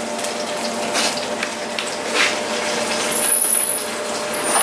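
Steady background noise of a working commercial kitchen: an even hiss with a low hum under it and a few faint clicks.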